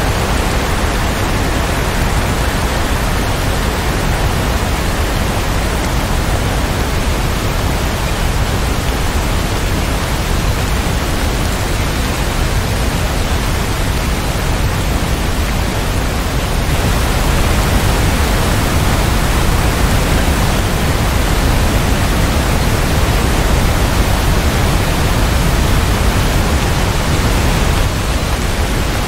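Steady, dense hiss of heavy rain falling, with no thunder; it grows a little louder past the middle and eases back near the end.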